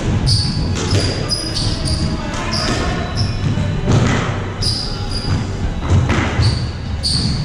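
Squash rally: the ball struck by rackets and smacking off the walls, a sharp hit every second or so, with short high squeaks of shoes on the wooden court floor.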